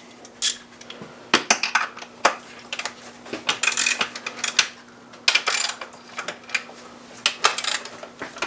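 Ratchet wrench with a 10 mm socket clicking as fuel rail bolts are loosened: a run of sharp metallic clicks and clinks, with a couple of quicker ratcheting runs near the middle.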